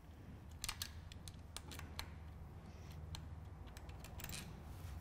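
Faint, irregular small metallic clicks and ticks as the mounting bolts of a mechanical disc brake caliper are unscrewed by hand and handled, over a steady low hum.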